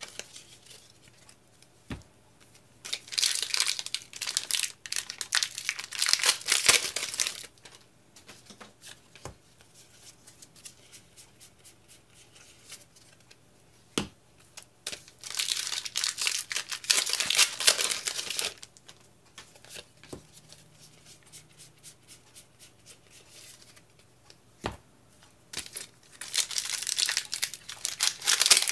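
Foil Pokémon TCG booster pack wrappers being torn open and crinkled by hand, in three bursts of sharp crackling and tearing with quieter pauses between.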